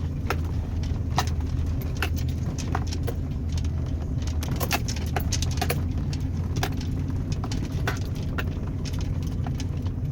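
Chevrolet Avalanche V8 engine running steadily as the truck drives off-road through snow, with frequent irregular clicks and rattles over the engine drone.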